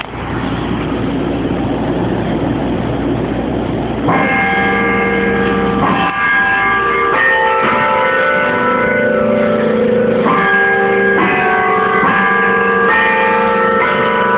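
Carillon bells heard close up from inside the tower, chiming the hour. After about four seconds of steady rushing noise, bells are struck one after another in a slow tune, about a note every one to two seconds, and their long ringing tones overlap and hang on.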